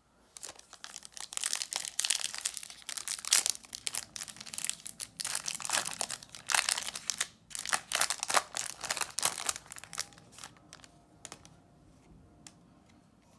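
Foil-lined trading-card pack wrapper being torn open and crinkled, a loud crackling for about ten seconds. It then gives way to faint rustling as the stack of sticker cards is handled.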